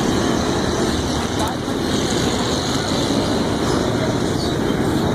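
Steady street traffic noise with people's voices mixed in.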